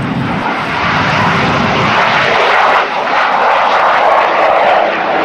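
Jet engine noise from a pair of Kawasaki T-4 trainers flying past in formation just after takeoff. The loud, even noise grows over the first couple of seconds and dips briefly about three seconds in.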